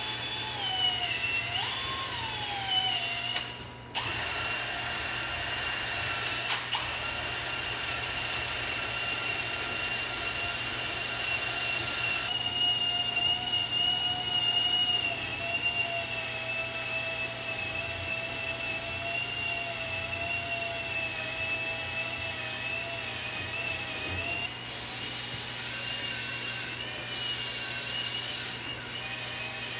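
Power drill running steadily as it scrubs an engine cylinder head. Its whine drifts slightly in pitch as the load changes, and it stops briefly about four seconds in. Near the end come hissing bursts of aerosol brake cleaner being sprayed.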